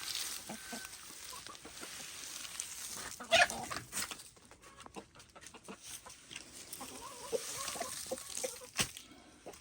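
Chickens clucking in short scattered calls as they feed on greens, with one louder sharp sound a little over three seconds in.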